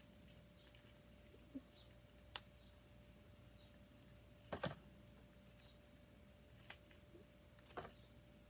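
Slime being kneaded by hand: mostly quiet, with a handful of faint, sharp clicks and pops scattered through it, the sharpest a little over two seconds in.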